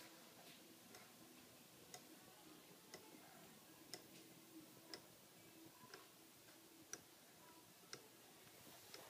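Wooden-geared Clayton Boyer Toucan pendulum clock ticking faintly and evenly, about one tick a second.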